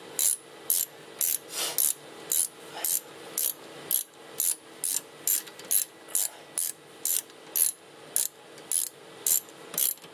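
Socket ratchet wrench clicking as it is swung back and forth to tighten a rear brake caliper bolt, about two clicks a second in an even rhythm.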